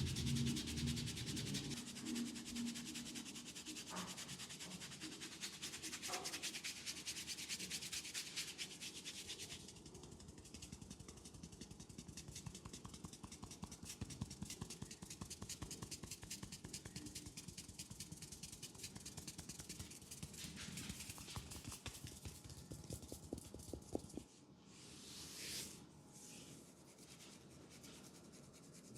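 Hands rubbing briskly over skin and hair in a close-miked massage, a rapid run of fine friction strokes. The rubbing turns softer after about ten seconds and drops away near the end, leaving a couple of short swishes.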